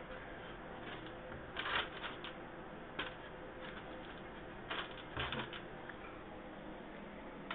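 A handful of short, light rustles and clicks, one small cluster about two seconds in and single ones around three and five seconds, over a faint steady background.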